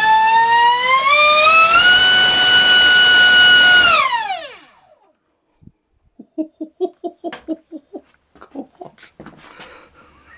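Dr Mad Thrust 2870 3000kv inrunner brushless motor on 5S with a 4.5x4.5 propeller at full throttle, pulling over 90 amps: a loud high whine that climbs in pitch over the first two seconds, holds, then spools down and stops about four seconds in. A few seconds later a person cries "wow" rapidly several times.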